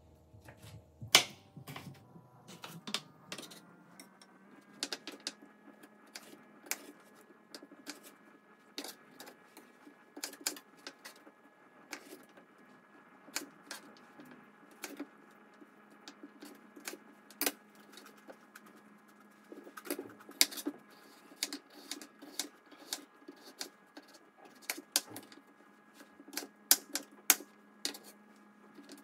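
Kitchen knife cutting cucumber into strips on a cutting board: irregular sharp knocks of the blade striking the board, a few of them much louder than the rest.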